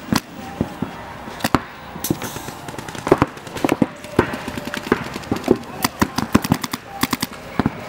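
Paintball markers firing: sharp pops, single shots and quick strings of several shots a second, loudest and fastest in the second half.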